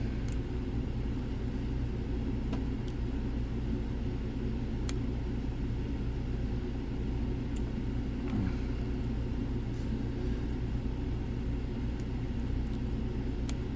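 Steady low machine hum, with a few faint light clicks scattered through it from a pick working inside a Lockwood padlock.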